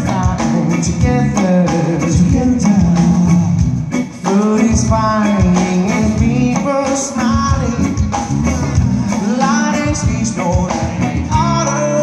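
Live rock band playing through a PA: electric guitars, bass and drum kit, with a lead singer singing into a microphone.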